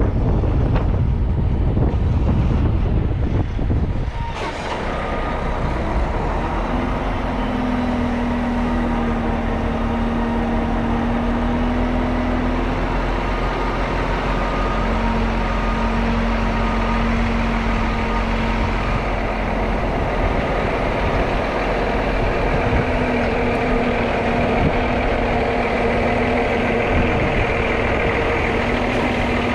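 Wind buffeting the microphone for about the first four seconds, then a Volvo VNL semi truck's diesel engine running steadily at low speed while the truck is maneuvered into position at a loading dock.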